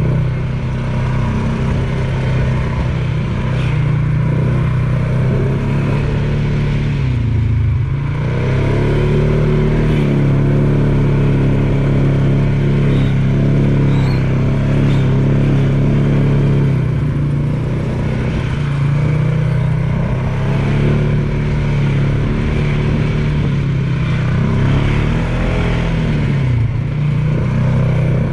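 ATV engine running steadily as it is ridden along a trail, the revs dropping and climbing back about seven seconds in and again near the end.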